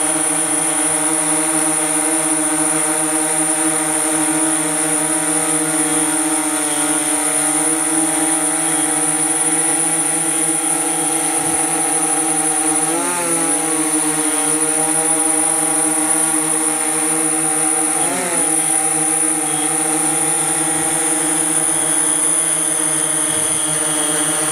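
DJI S1000+ octocopter's eight rotors humming steadily as it hovers, with a thin high whine above the hum. The pitch wobbles briefly twice, about halfway through and again some five seconds later.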